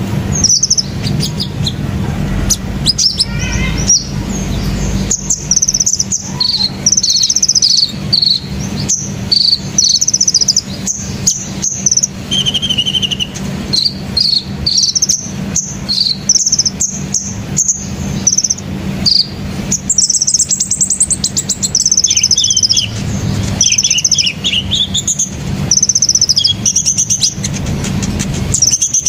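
Sunbirds (called kolibri in Indonesia) calling from the treetops: a steady stream of short, high-pitched chirps and brief trills from several birds, overlapping.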